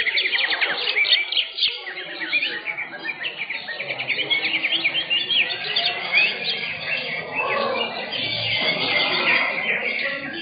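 Several caged green leafbirds (cucak hijau) singing at once in a dense, overlapping chorus of quick chirps and trills.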